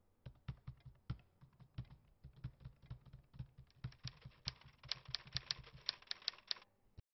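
Typing on a laptop keyboard: a quick, irregular run of key clicks that gets louder over the last couple of seconds and then stops abruptly.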